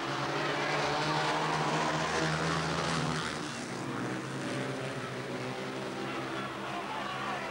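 Speedway bikes' 500cc single-cylinder methanol engines racing around the track in a heat, a steady multi-engine drone. It is loudest for the first three seconds, then eases a little as the pack moves away.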